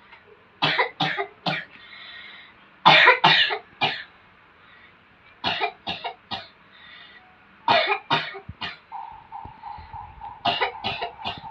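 A person coughing in repeated fits, five bouts of three or four short coughs a couple of seconds apart. The healer attributes this cough to spirit disturbance. A steady hum starts about nine seconds in.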